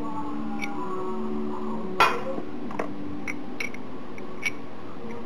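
Small parts clinking in a clear plastic parts box as a hand sorts through it: one sharp knock about two seconds in, then scattered light clicks.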